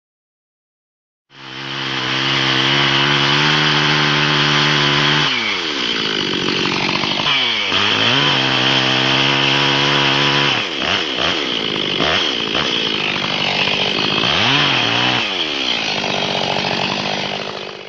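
Chainsaw running at full throttle while cutting along a log with a chainsaw mill clamped to its bar. The engine pitch dips and recovers several times as the chain bogs under load in the cut. It starts about a second in and stops right at the end.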